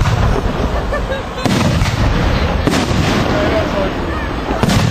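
Fireworks bursting in the sky: three loud bangs, the last near the end, over a continuous low rumble.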